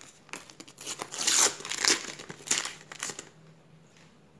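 Sticker packaging crinkling and rustling as it is handled, in bursts from about a second in, fading out about three seconds in.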